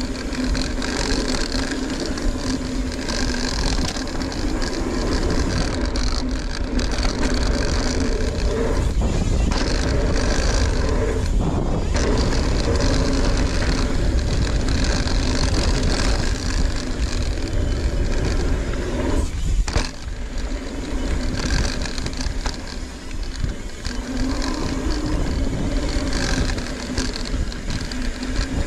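Ibis Ripmo mountain bike riding down a dirt trail: wind rushing over the camera microphone and tyres rumbling on the ground in a steady, loud noise that briefly dips a few times.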